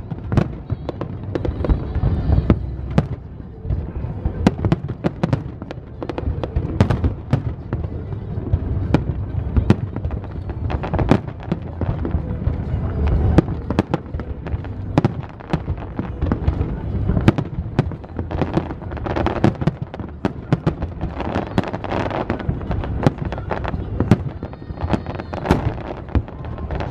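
Aerial fireworks display in a continuous barrage of sharp bangs and crackling bursts over a low rumble of booms.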